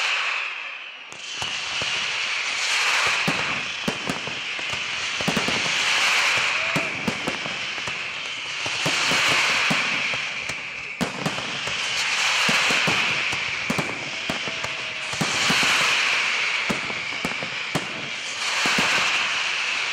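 Fireworks display at full intensity: many sharp bangs of bursting aerial shells in quick succession. A high rushing hiss and crackle swells and fades every few seconds under the bangs.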